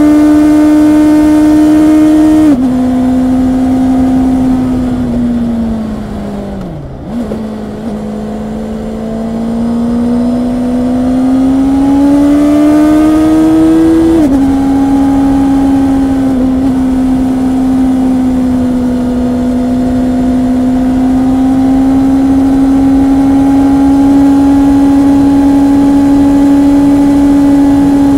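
Honda CB650R's inline-four engine under way, recorded raw. It runs steadily, drops suddenly in pitch about two and a half seconds in, then the revs fall away to a low point with a brief jump in pitch around seven seconds. After that the revs climb steadily under acceleration, drop sharply again at a gear change around fourteen seconds, and then hold steady at cruise.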